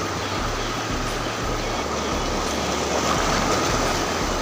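Steady rush of sea surf washing over a rocky reef, with wind rumbling on the microphone.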